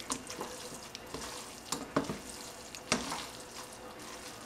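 Silicone-tipped kitchen tongs tossing ramen noodles and vegetables in a stainless steel pot, with a few light clacks of the tongs against the pot over a faint steady sizzle.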